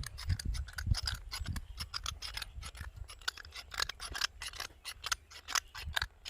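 A quick, irregular run of sharp clicks and taps, several a second, with soft low knocks under them.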